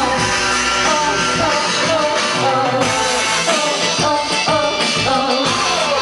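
Women's voices singing into microphones with a live band playing behind them, over a steady beat.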